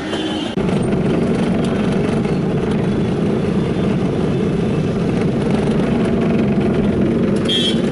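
Steady engine and road noise inside the cabin of a moving Hindustan Ambassador taxi, cutting in abruptly about half a second in. A brief high-pitched sound comes near the end.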